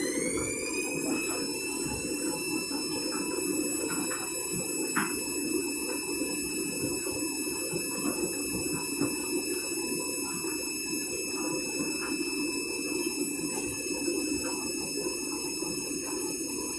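Candy Grand'O Vita washing machine spinning its empty drum: the motor's whine rises in pitch over the first couple of seconds as the drum speeds up, then holds a steady high whine over an even rushing hum.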